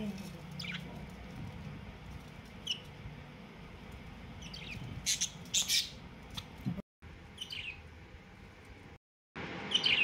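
Budgerigar chirping: short, high calls every second or two, with a louder cluster about five seconds in.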